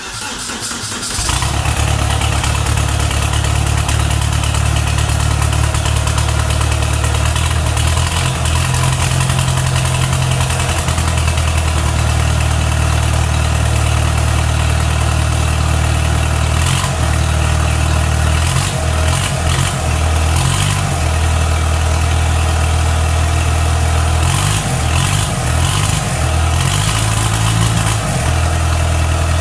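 Audi TDI diesel engine fitted in a VW T25 van, catching right at the start and running on within about a second, its speed rising and falling unevenly several times. It is only half-rigged with no turbo plumbed in, and the owner notes it smoking and misfiring.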